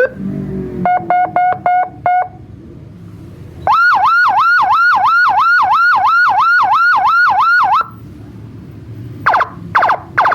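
CJB 200-watt electronic siren running through its tones: four short beeps, then a fast yelp of about four sweeps a second lasting about four seconds, then three quick chirps near the end.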